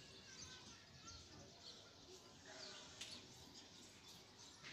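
Near silence with faint birdsong: scattered short, high, falling chirps, and a couple of soft clicks late on.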